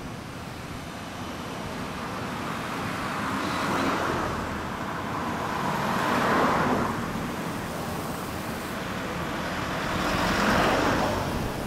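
Road traffic: cars and vans passing close by, three of them swelling and fading in turn, about four seconds in, about six seconds in and near the end.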